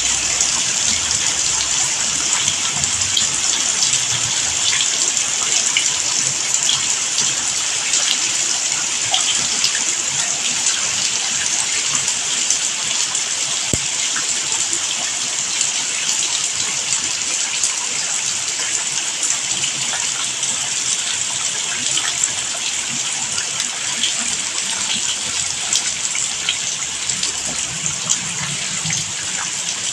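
Steady heavy rain: a dense, even hiss of falling water with many small drop ticks scattered through it.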